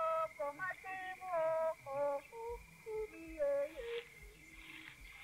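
A high voice singing short notes that leap up and down in pitch, over a steady high tone; the singing stops about four seconds in.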